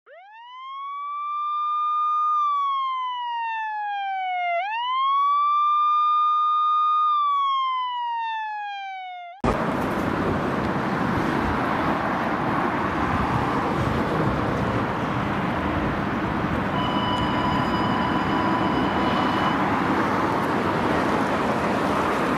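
Police-style siren wail over a silent background: it rises, holds and falls slowly in two long cycles, then cuts off abruptly about nine seconds in. Steady street noise follows, with a steady beep lasting about three seconds near the end.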